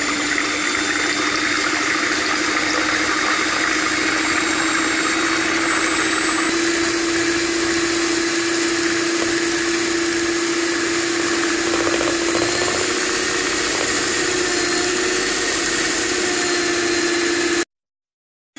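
Electric hand mixer running steadily as its twin beaters whip raw eggs in a plastic bowl, its motor pitch stepping up slightly about six seconds in. The sound cuts out abruptly for about a second near the end.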